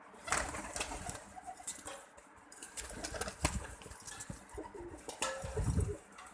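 Pigeons cooing and moving about, with scattered sharp clicks and a loud low muffled burst about five seconds in.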